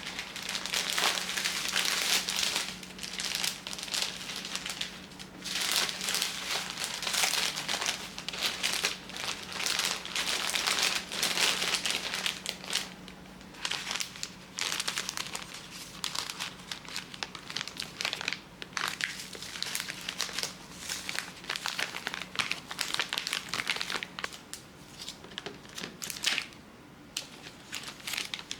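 Plastic packaging and bags crinkling and rustling as they are handled, in irregular bursts with short pauses, over a faint steady low hum that stops near the end.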